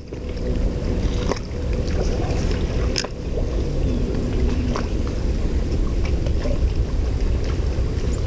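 Wind rumbling on the microphone over water lapping at the pier and boat lift, with a few sharp clicks, the loudest about three seconds in.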